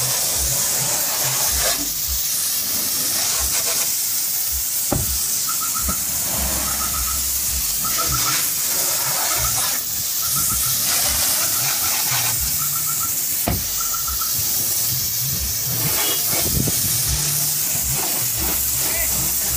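Hiss of water sprayed from a hose nozzle onto a car's door frames, sills and bodywork, steady throughout. A short high chirping repeats about six times in the middle.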